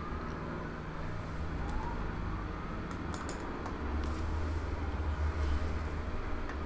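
Quiet background with a low steady rumble that swells slightly in the second half, and a few faint clicks about three seconds in.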